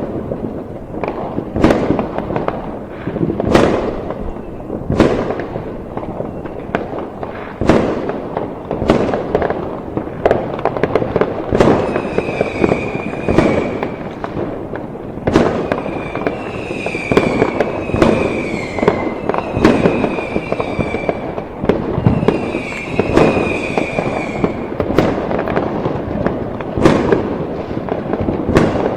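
Fireworks going off: a dense string of sharp bangs over continuous crackling. Through the middle stretch several short whistling tones, each about a second long and dipping slightly in pitch, sound among the bangs.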